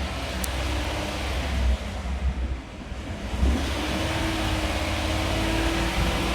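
2018 GMC pickup engine running with the RPM raised, making a rough, grating sound. The engine has a cylinder 4 misfire, and the mechanic takes the sound for a mechanical fault rather than an electrical one.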